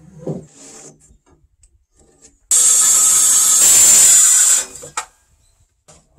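Makita circular saw cutting into a wooden timber beam: a loud, high-pitched whine and rasp that starts suddenly, lasts about two seconds and stops, followed by a sharp knock. Light knocks of wood being handled come before it.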